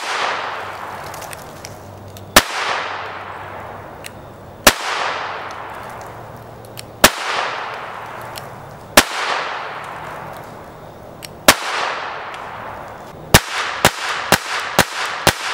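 Beretta 950 BS Minx M4 pocket pistol firing CCI .22 Short 29-grain rounds: single sharp shots about two seconds apart, each with a fading echo, then a quicker string of shots near the end.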